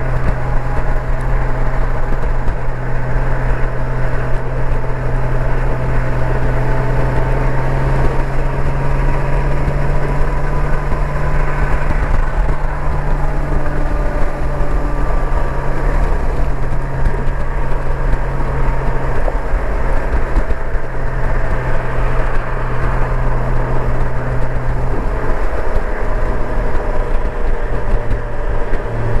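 Honda Gold Wing motorcycle cruising at highway speed, heard from the rider's seat: a steady low engine drone mixed with constant wind and road noise.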